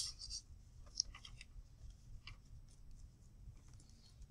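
Sheet of notebook paper being slid and handled by hand on a desk: a few faint rustles and scrapes, the loudest at the start and a small tap about a second in, over a steady low hum.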